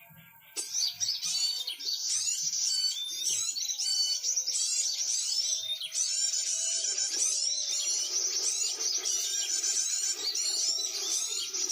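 Dense, high-pitched chirping and trilling of many small birds, starting after a brief gap about half a second in, with some lower sustained tones beneath.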